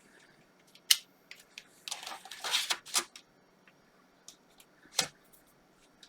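Scattered sharp clicks with a short burst of clatter and rustle in the middle, from handling a desktop PC and its parts.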